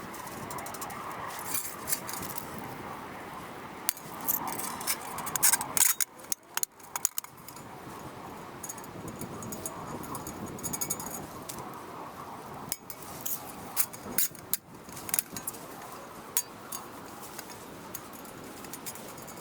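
Thin stainless-steel stove panels, threaded rods and wing nuts clinking and rattling as they are handled and fitted together, with sharp metal clicks scattered throughout and the loudest cluster a few seconds in.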